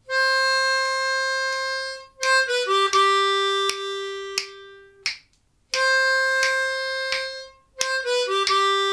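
10-hole diatonic harmonica in C playing a simple blues phrase twice: a long 4-hole blow note, a quick 4 blow and 3 draw, then a long held 2-hole draw note. A metronome clicks steadily about every 0.7 seconds underneath.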